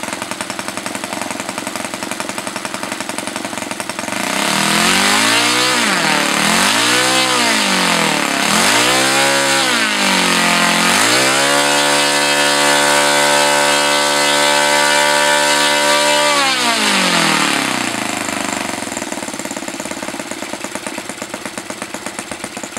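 O.S. 155 FS-a single-cylinder four-stroke glow engine turning an APC 17x8 propeller on a test stand, warming up under manual throttle. It idles, is blipped up and back down three times starting about four seconds in, is then held at high revs for about five seconds, and is throttled back to idle.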